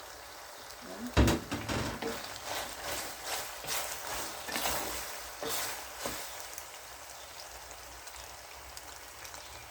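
A sharp knock on a cooking pot about a second in, then several seconds of irregular scraping and stirring as pasta and carrots are turned in a hot, oiled pot. A faint steady sizzle carries on after the stirring stops.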